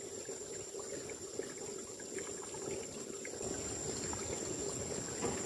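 A small stream trickling and splashing steadily over rocks, with a thin steady high tone behind it.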